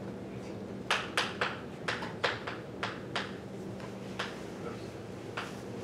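Chalk clicking against a blackboard as numbers are written: about a dozen sharp, irregular taps starting about a second in.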